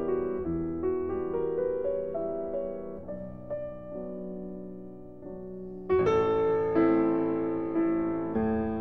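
Piano music soundtrack: gentle, fading notes that grow into louder struck chords about six seconds in.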